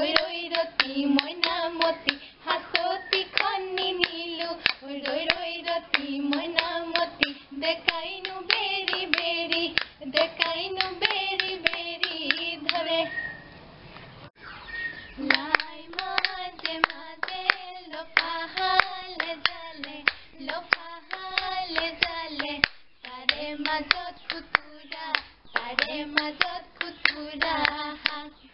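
Women singing a Bihu naam, an Assamese folk song, kept in time by fast, steady hand claps and the clack of a split-bamboo toka clapper, with no drum. The song and clapping break off briefly about halfway through, then resume.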